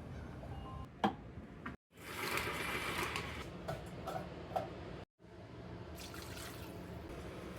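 Running water, an even hiss lasting about three seconds and set between two abrupt edit cuts, with a few small clicks near its end.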